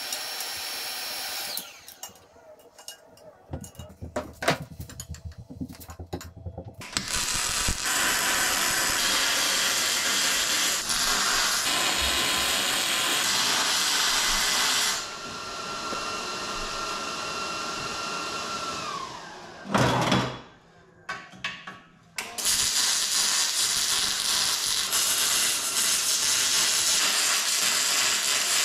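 A handheld power tool running in several long stretches. Its motor whine falls away as it spins down near the start and again about two-thirds through. The gaps between hold short knocks and clatter, with one loud knock just after the second spin-down.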